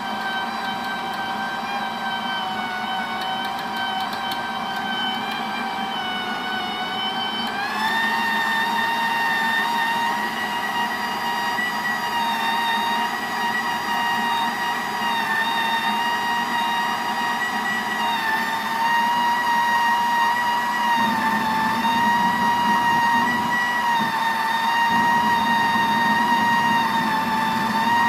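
Hobart MIG welder's wire-feed motor running steadily with a high whine as it pushes soft 0.035-inch aluminum wire through a standard MIG gun's liner. The whine steps up a little in pitch about seven seconds in.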